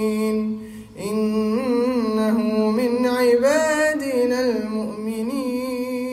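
A man's solo voice reciting the Quran in melodic tajwid style with no accompaniment or effects: a held note, a short breath about a second in, then an ornamented, wavering phrase that settles on a long sustained note near the end.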